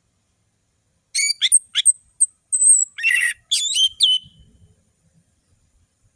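Orange-headed thrush singing one phrase of about three and a half seconds, starting about a second in: quick, sharp, high whistled notes and slurs, with a harsh rasping note in the middle.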